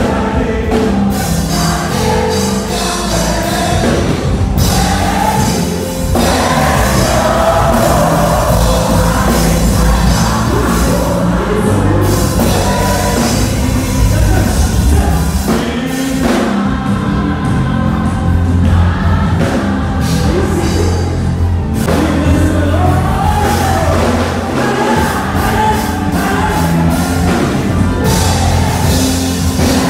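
Live gospel praise music played loud through a PA system: a band with a deep bass line and a singer on a microphone.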